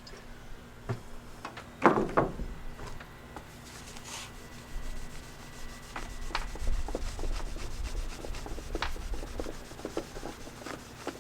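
A cloth rag rubbing and wiping finish over a wooden board, with a few knocks and taps as the piece is handled; the loudest knocks come about two seconds in.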